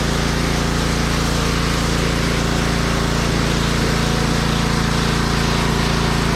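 Pressure washer running steadily while spraying stamped concrete: a constant motor hum under the hiss of the water jet.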